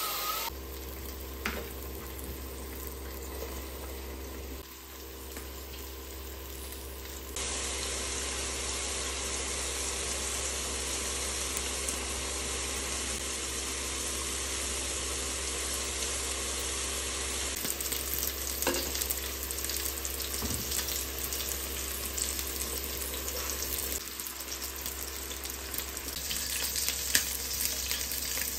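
Shredded cabbage, carrots and peppers sizzling as they fry in a pan, with a few clicks of a utensil stirring. A steady low hum runs underneath.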